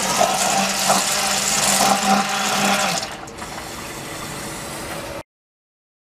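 Basement Watchdog Big Dog+ battery-backup sump pump running in the sump pit on a test run, a steady hum over rushing water. About three seconds in the hum stops and the level drops to a fainter water noise. Near the end the sound cuts off suddenly.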